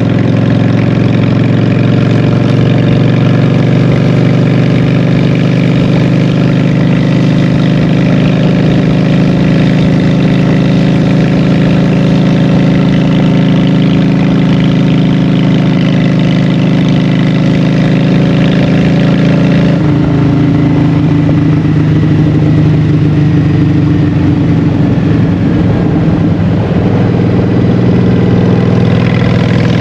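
Honda Shadow 750 V-twin engine through Vance & Hines Short Shots exhaust pipes, running steadily while riding. The engine note changes abruptly about two-thirds of the way through, then rises again near the end.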